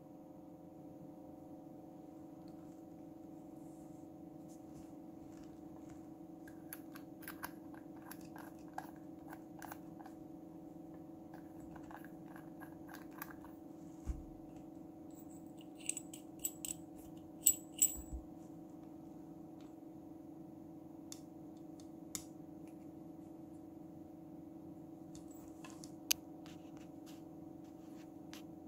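Scattered light clicks and taps of brass pipe fittings and a plastic air blow gun being picked up and handled, over a steady low hum. The sharpest are a few knocks a little past halfway.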